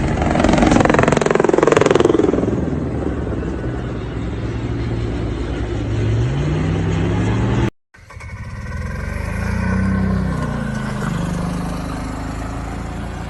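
Off-road vehicle engine revving: its pitch falls away over the first few seconds, then climbs again. A hard cut about eight seconds in switches to another vehicle's engine revving up and back down.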